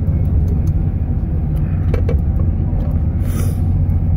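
Steady low rumble of a moving train, heard inside the carriage, with a few faint clicks and a short hiss a little past three seconds in.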